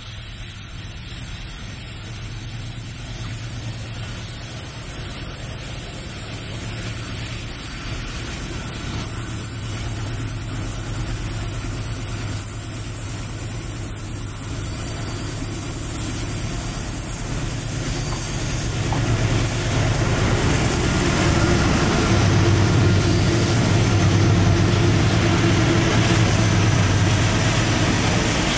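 Diesel-electric freight locomotives approaching and passing, their engines' low steady drone growing louder. The sound fills out and swells from about two-thirds of the way in, loudest near the end as the lead units come alongside.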